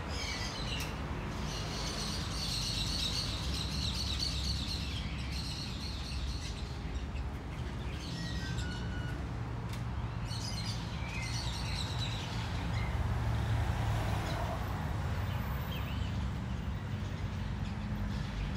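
Birds chirping in bursts over a steady low rumble.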